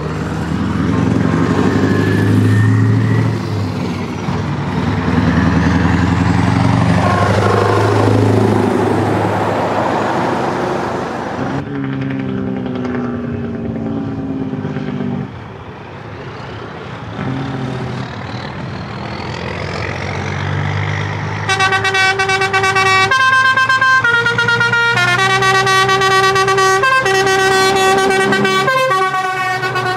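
Big semi trucks driving past with their diesel engines running, one swelling loud and then fading away. From about two-thirds of the way in, a truck's air horn sounds a series of long multi-tone blasts with short breaks, its notes shifting between blasts.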